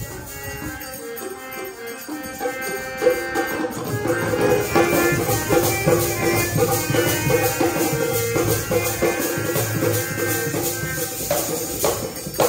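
Sikh dharna kirtan music: sustained held chords over a fast, steady beat of hand percussion with rattling jingles, getting louder a few seconds in and stopping at the end.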